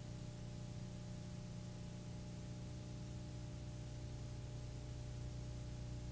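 Steady low electrical hum with an even hiss over it, unchanging throughout.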